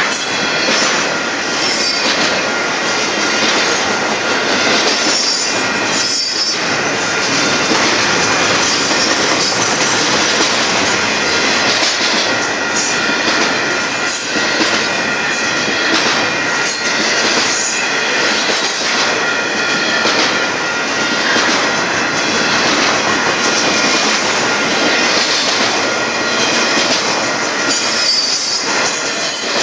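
Union Pacific double-stack intermodal container train rolling steadily past: continuous rumble of steel wheels on rail with repeated clacks over the rail joints and a thin squeal from the wheels at times.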